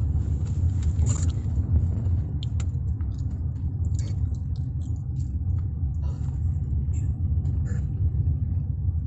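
Steady low rumble of a car's road and engine noise heard from inside the cabin while driving slowly, with scattered faint clicks and crackles over it.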